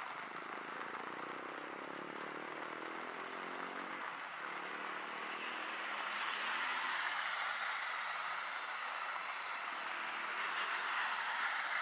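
Steady rain hiss with a motor vehicle passing: an engine hum rises slightly and fades in the first few seconds, then the hiss grows louder, like tyres on a wet road.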